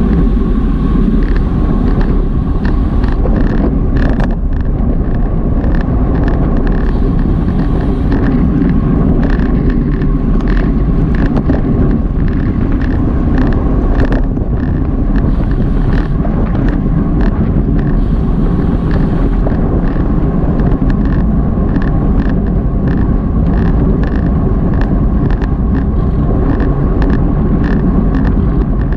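Wind rushing over the microphone of a Garmin VIRB action camera while riding in a bicycle race, with road noise and frequent short clicks and rattles from the bike.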